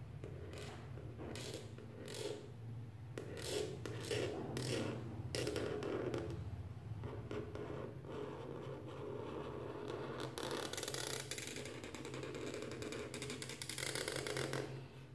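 Black marker scratching across paper: a series of short separate strokes, then longer, more continuous strokes.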